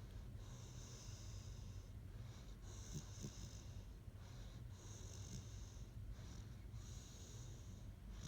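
Great Dane snoring in its sleep: faint, slow breaths with a hiss on each, about one every two seconds.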